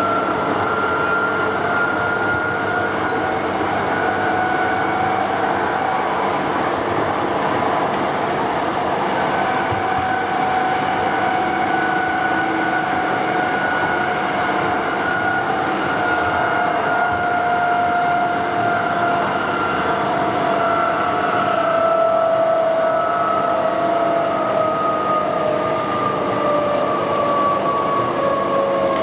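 Perth suburban electric train running, heard from inside the carriage: a steady rumble and rail noise under a two-note whine. The whine rises slightly early on and slowly falls in pitch over the second half.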